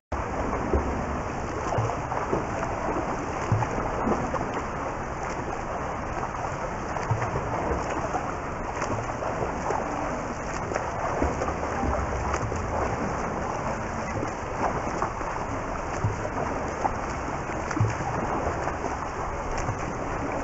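Pool water splashing and lapping at the surface, with the splashes of a swimmer's front-crawl strokes: a steady wash of water noise with many small irregular slaps.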